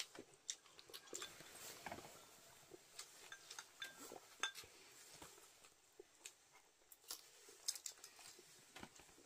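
Faint, scattered clinks and taps of eating utensils against bowls and dishes during a meal, a few of them ringing briefly.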